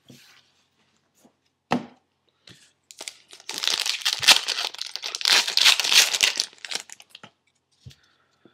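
Wrapper of a 2011 Upper Deck football card pack being torn open and crinkled: one sharp click just before two seconds in, then about four seconds of dense crackling tearing.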